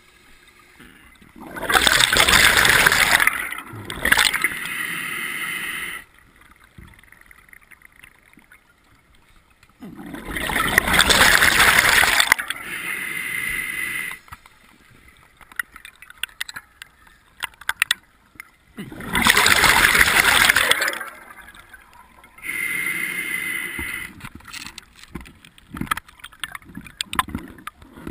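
Scuba diver breathing through a regulator underwater: three breaths about nine seconds apart, each a loud two-second rush of air and bubbles followed by a quieter hiss, with small scattered clicks between breaths.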